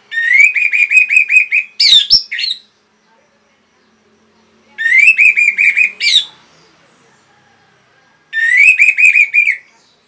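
Orange-headed thrush (anis merah) singing three loud phrases with short pauses between. Each phrase opens with a rising note, runs into a quick string of repeated notes and ends in sharp sweeping notes.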